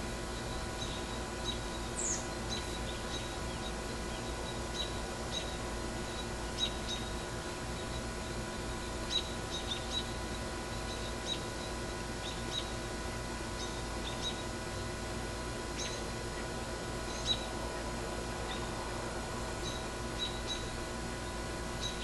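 Short, high bird chirps at irregular intervals over a steady hiss with faint hum. One quick downward-sliding call comes about two seconds in.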